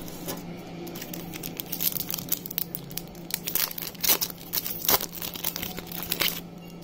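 Booster pack wrapper crinkling and being torn open, a quick run of crackles that starts about a second and a half in and stops shortly before the end.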